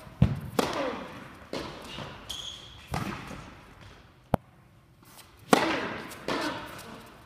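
Tennis balls struck by rackets and bouncing on an indoor hard court: about seven sharp pops at uneven spacing, each ringing on in the hall's echo.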